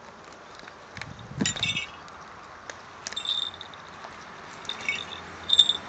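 Small falconry bells on Harris's hawks jingling in brief, scattered tinkles as the birds tug and tear at a pheasant kill. The loudest ring comes near the end, and a soft knock comes about a second and a half in.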